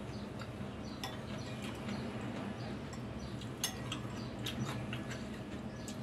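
A metal fork and spoon clinking against a ceramic bowl as instant noodles are stirred and lifted, a scatter of light clicks with the sharpest about three and a half seconds in. A steady low hum runs underneath.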